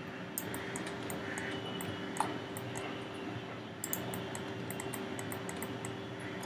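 Steady room hum and hiss of a desk recording setup, with many small, sharp computer mouse and keyboard clicks in quick clusters, the busiest just before the middle.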